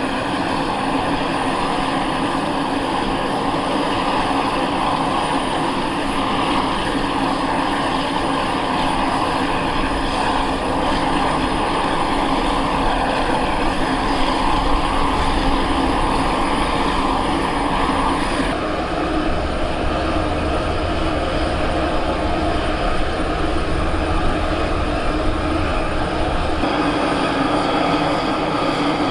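Aircraft engine running steadily at close range, a continuous rush with a high whine over it. About two-thirds through, the whine drops out abruptly and a deeper rumble takes over, easing again near the end.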